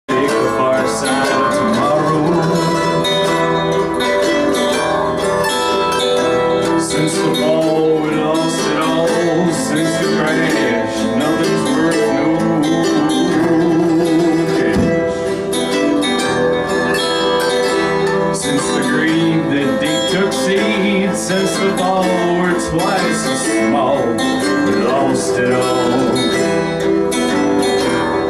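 Live acoustic string music: a strummed acoustic guitar with a second string instrument playing the melody, in a country or folk style. It starts abruptly, and the level stays steady after that.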